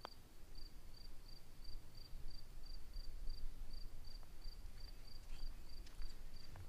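Cricket chirping steadily, about three short high chirps a second. Right at the start there is one faint click of a putter striking a golf ball.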